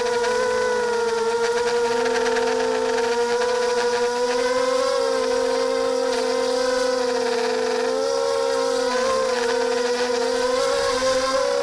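Small FPV quadcopter's electric motors and propellers whining steadily in flight, the pitch wavering slightly a few times as the throttle shifts.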